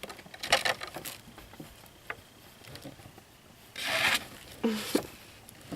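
Hands rubbing and rustling the doll's wrapping and box packaging in a few short scratchy bursts, the longest about four seconds in.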